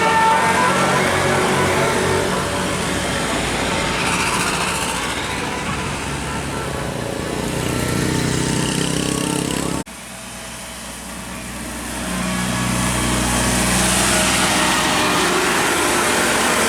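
Tour bus engine running as the bus moves past. The sound cuts off abruptly about ten seconds in, then another stretch of bus engine grows steadily louder.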